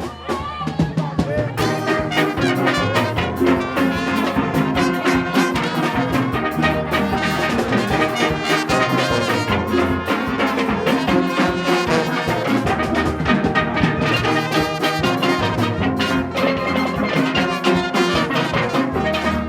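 Upbeat ensemble music with pitched percussion and a steady beat, starting suddenly at full level.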